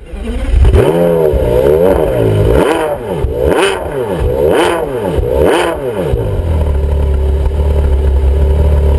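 An engine being revved in repeated blips, each rising and then falling in pitch, about once a second, then settling into a steady idle about six seconds in.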